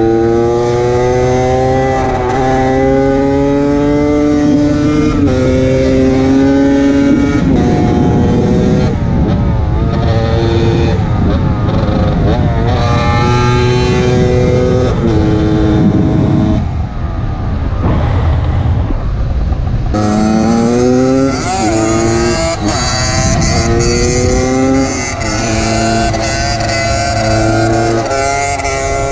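Yamaha DT125X single-cylinder two-stroke motorcycle engine being ridden hard, its pitch climbing under acceleration and dropping back at each gear change, over and over.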